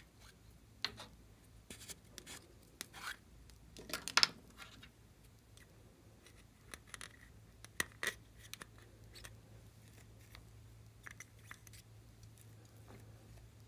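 Small plastic containers being handled: scattered clicks as the stacked pieces are twisted apart and a plastic spatula scraping out the glossy filling, with the loudest clatter about four seconds in.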